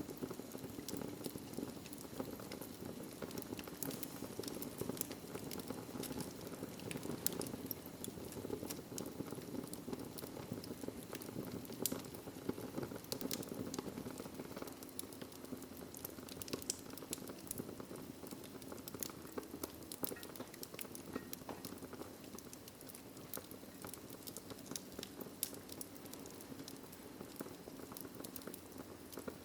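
Fire burning in a fireplace: many small sharp crackles and pops over a steady low rush of flames.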